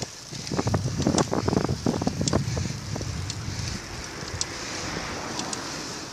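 Wind noise on the microphone of a camera riding among road cyclists on a climb: gusty buffeting for the first three seconds or so, then a steady hiss. Faint sharp ticks come about once a second.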